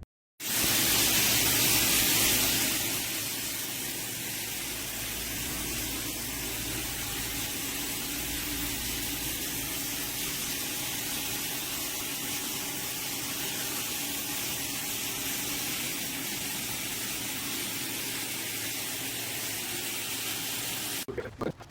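Water spraying from a square rain shower head as a steady, even hiss, loudest for the first couple of seconds. It cuts off abruptly near the end.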